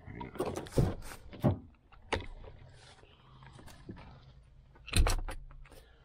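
Clinking and rattling of metal parts being handled, with several sharp knocks, the loudest about five seconds in.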